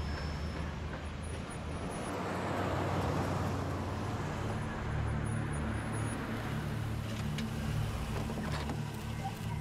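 Car engines running low as cars pull slowly into a paved yard, with tyre and engine noise swelling a couple of seconds in.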